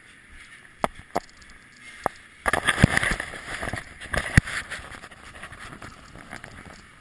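Camera handling noise as the rider climbs aboard a moving freight train: a few sharp knocks, then about two seconds of heavy rubbing and clattering with two loud knocks, over the train's steady running noise.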